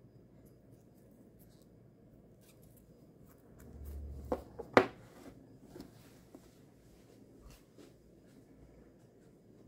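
Faint handling of a wristwatch's rubber strap and steel pin buckle: soft rustles and small clicks, a brief low rumble, then two sharp knocks about four to five seconds in, the second much louder, as the steel-cased watch is set down on a wooden desk.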